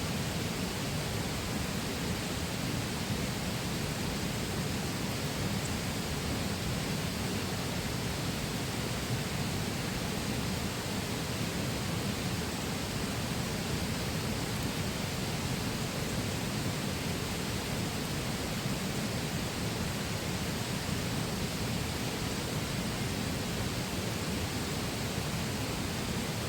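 River water flowing steadily with an even rushing sound.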